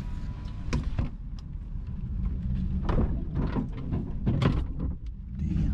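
Pickup truck driving slowly, heard from inside the cab: a low steady rumble with many irregular knocks and rattles as it bumps over uneven, storm-littered ground.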